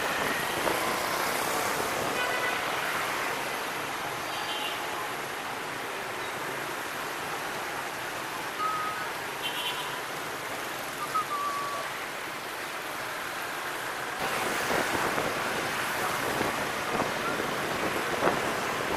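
Steady rush of wind on the microphone and street traffic noise from a moving motor scooter, getting louder about two-thirds of the way through.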